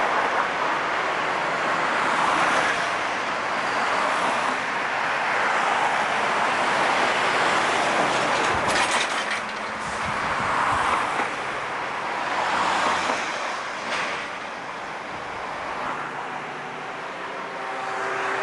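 Steady rushing vehicle and traffic noise of travel past steel truss bridges, with a few sharp clacks about nine and fourteen seconds in and a faint steady hum near the end.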